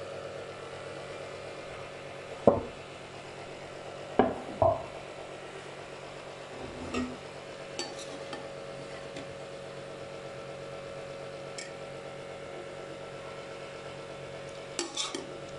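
Metal utensils clanking against a steel cooking pot, with three sharp knocks in the first five seconds. Lighter clinks and scrapes follow as a perforated metal spoon turns the cooked rice. A faint steady hum runs underneath.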